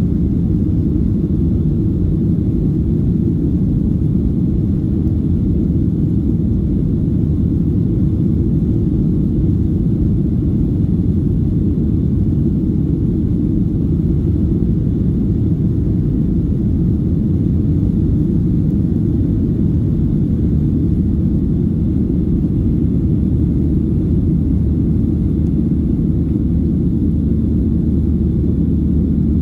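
Boeing 737-700's CFM56-7B jet engines and airflow at climb power shortly after takeoff, heard inside the cabin over the wing: a steady low noise that does not change.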